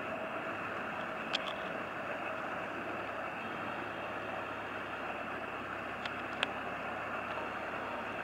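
Steady running of a passing motor workboat's engine heard across the water, mixed with a steady hiss of wash and river ambience. Two short clicks cut through, about a second and a half in and again about six seconds in.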